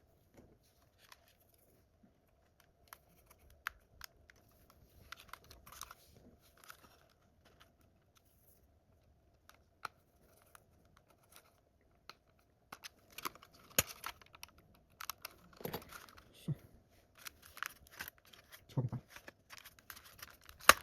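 Small clicks, scrapes and rustles of hands working the plastic parts of a DJI Mini 3 drone, pressing a replacement front arm hinge into place. The sounds are sparse at first and busier from about twelve seconds in.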